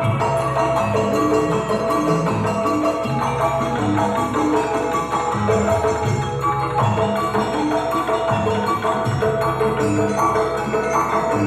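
Dance accompaniment music led by struck mallet percussion, ringing metal-sounding notes over a steady low beat.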